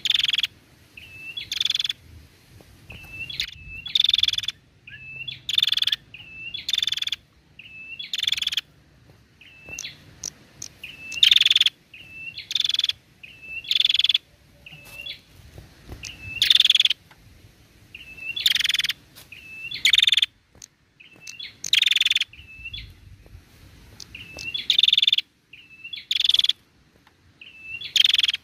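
Female prenjak singing over and over: each phrase is a couple of short chirps followed by a louder harsh buzzing note, repeated about every one and a half to two seconds.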